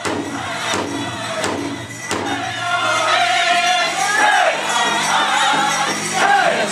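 Powwow drum group performing a Prairie Chicken dance song: a group of singers in high voices over a big drum beaten in a steady beat, about one stroke every three-quarters of a second.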